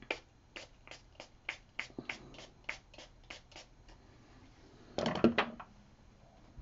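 A run of about a dozen light, evenly spaced clicks, roughly three a second, followed about five seconds in by a short, louder clatter of handling noise.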